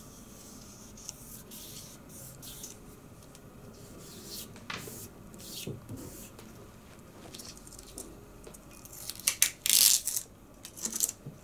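A vinyl sticker being applied by hand to an aluminium extrusion: scattered rubbing and crinkling of the sticker and its transfer tape under the fingers. Near the end comes a louder, short rasping peel as the transfer tape is pulled off, followed by a few smaller crackles.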